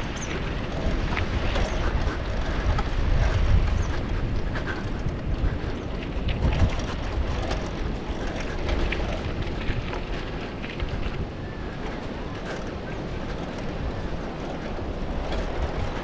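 Wind rumbling on the microphone of a moving bicycle rider, over a continuous crackle of tyres rolling on a gravel road.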